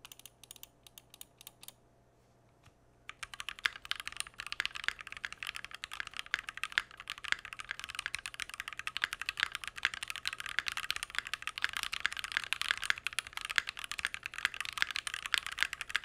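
Keychron Q1 aluminium gasket-mounted mechanical keyboard with lubed Dogikon switches being typed on while held off the desk. A few separate key presses come in the first two seconds, then a pause, then fast continuous typing from about three seconds in. The typing sounds pingy and hollow with case reverb, even with a tape mod and case foam inside.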